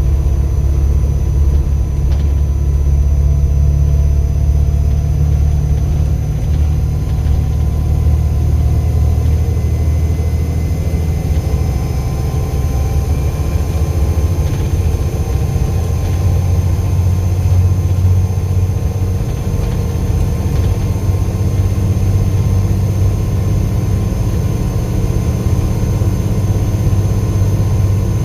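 Volvo B7 bus's turbodiesel engine running with a steady low rumble. Through the middle a faint turbo whistle rises and falls in pitch above it.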